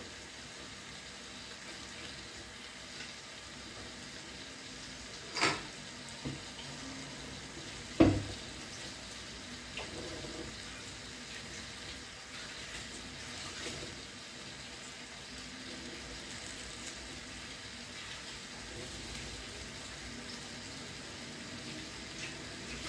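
Tap water running at a kitchen sink while a glass pot lid is washed under it. Two sharp knocks about five and eight seconds in, the second the loudest.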